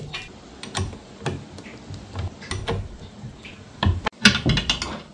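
A run of irregular clicks and knocks, as of hard objects being handled and set down, with a louder cluster of knocks about four seconds in.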